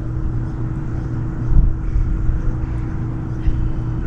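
A steady, engine-like drone with one constant hum, over a low rumble.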